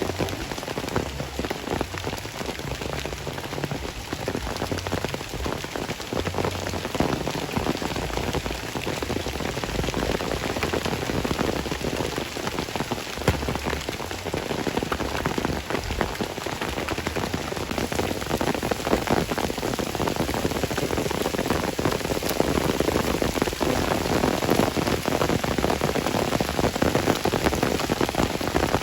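Steady rain falling, a dense patter of drops on surfaces.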